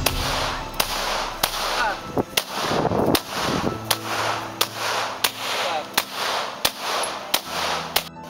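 Pistol fired in a steady string of single shots, about a dozen in all, roughly one every three-quarters of a second.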